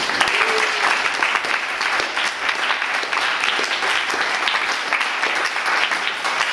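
Audience applauding, a burst of clapping that starts abruptly and keeps up steadily.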